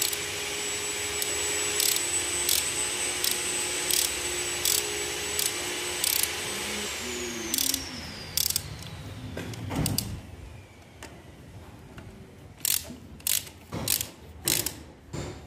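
Hand ratchet clicking on a long socket extension while cylinder-head bolts are undone on a Maruti Gypsy engine, one sharp click every second or so, then quicker bunches of clicks near the end. Behind it a steady machine hum with a high whine falls away and stops about seven seconds in.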